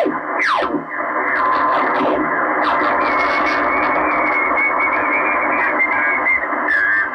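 Receiver audio from a Kenwood TS-440S transceiver in lower sideband being tuned down the 40-metre band: band noise hiss confined to a narrow audio passband, with heterodyne whistles sliding in pitch as the dial sweeps past signals. Near the start a whistle drops quickly in pitch, and later a steadier whistle sits above the hiss.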